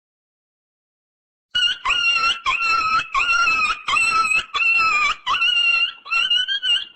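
High-pitched whining animal cries in quick succession, about two a second, starting about a second and a half in.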